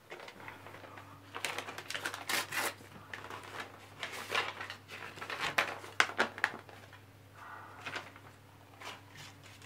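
Paper being handled and opened, an envelope and letter, in a run of quick rustles and crinkles that are loudest about six seconds in.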